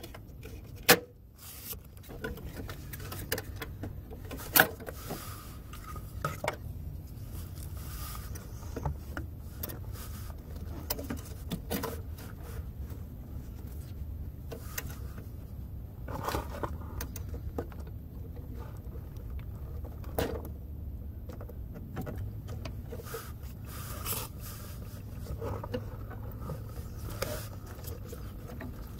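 Hands working the fuel line fittings on a Bentley Flying Spur's fuel filter under the car, disconnecting the line: scraping and handling noises with sharp plastic-and-metal clicks, the loudest about a second in and again near five seconds, over a steady low rumble.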